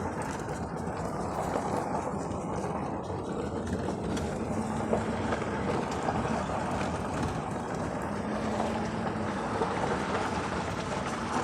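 Steady road and engine noise inside the cabin of a moving four-wheel-drive vehicle. A faint low hum comes and goes a few times.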